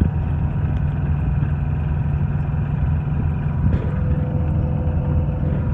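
Car running on a snowy road, heard from inside the cabin: a steady low drone of engine and tyre noise. A faint steady whine joins it about four seconds in.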